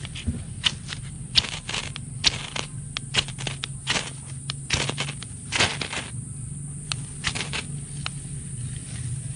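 Ferro rod scraped hard with a knife blade, a run of short, sharp rasping strikes at about two a second, uneven, with a brief lull about six seconds in. The strikes throw sparks into a tinder bundle that has not yet caught.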